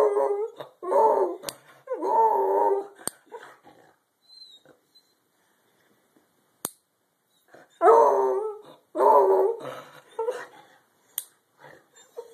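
Beagle howling with excitement at the sight of the leash: three long howls at the start, a pause of several seconds, then two more long howls about eight seconds in, tailing off into shorter yelps. A few sharp clicks fall in the gaps.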